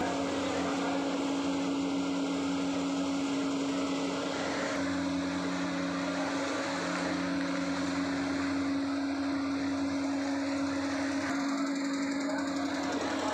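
Machinery of a steam-heated khoya (mawa) making plant running steadily: an even motor hum with a constant rushing noise over it.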